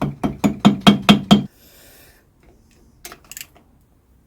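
Rapid, evenly spaced hammer blows, about five a second, stopping abruptly about a second and a half in, then a few light clicks.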